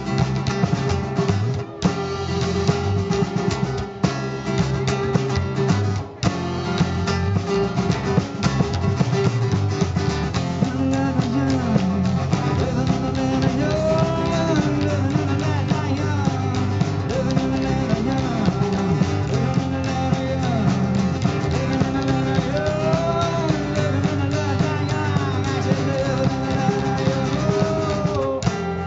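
Live rock band playing: acoustic guitar, electric guitar and drum kit. About ten seconds in, a melody with bending, gliding notes comes in over the band.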